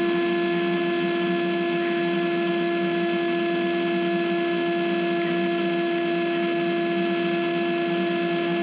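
Steady electric hum from a stationary electric RC buggy: one fixed tone with several fainter higher overtones, unchanging throughout.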